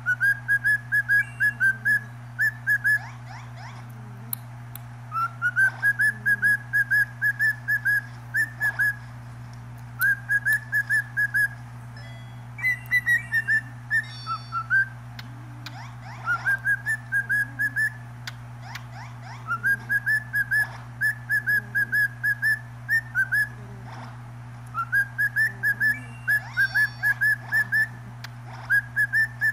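Cockatiel whistling in runs of short, quick notes on nearly one pitch, each run starting with a slight upward slur and recurring every few seconds, over a steady low hum.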